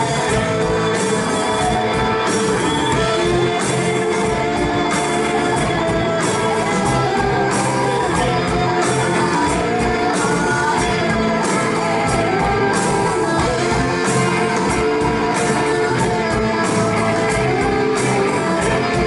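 Live rock band playing in a concert hall: guitars and drums, with a steady beat.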